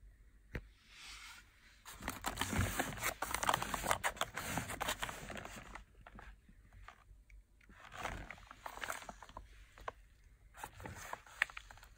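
Crinkling and rustling of a firework cake's foil top and paper wrapping as it is picked up and turned in the hand, densest for a few seconds early on, then in two shorter bouts near the end.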